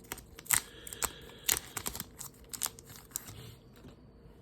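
Football trading cards being handled and flipped through by hand, a string of quick, irregular sharp flicks and rustles that thin out near the end.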